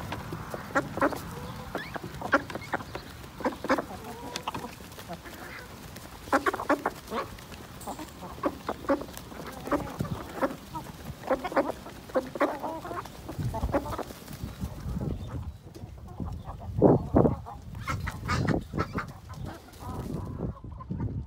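A flock of chickens, hens and roosters, clucking with many short, overlapping calls as they feed. There are a few low rumbles in the middle of the stretch.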